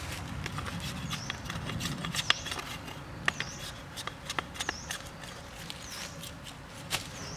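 Small hatchet chopping and trimming a split bamboo strip: irregular sharp knocks and clicks of the blade on the bamboo, the loudest about two seconds in. A short high chirp repeats about once a second behind it.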